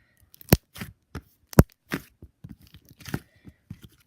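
Butter slime being pressed and poked by hand, giving scattered sticky clicks and small pops, with two sharper snaps about half a second and a second and a half in.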